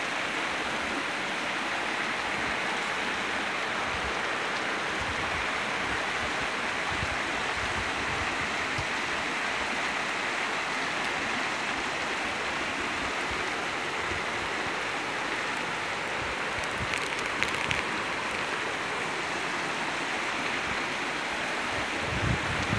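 Steady, even rush of floodwater, with rain falling.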